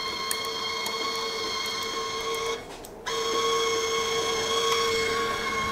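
Wire-feed motor of a Parkside PFDS 120 A2 flux-core welder running with a steady whine as the wire is pushed through the torch; it stops for about half a second near the middle and then starts again.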